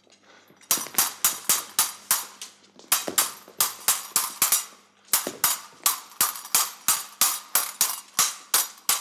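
Stage swords clashing blade on blade in a rapid exchange of sharp metallic clinks, about four a second, with a brief break about five seconds in.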